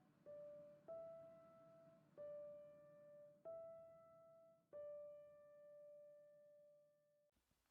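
Faint, slow background piano music: five single notes, each struck and left to fade, the last held for a couple of seconds before the music cuts off near the end.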